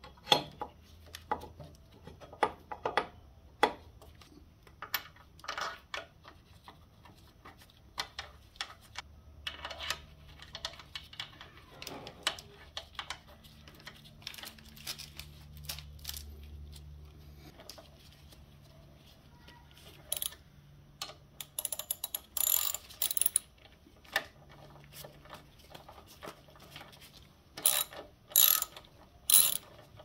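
Hand socket ratchet clicking in short runs as the front brake caliper's mounting bolts are tightened, among scattered clicks and knocks of metal parts being handled. The ratcheting clusters in the last third.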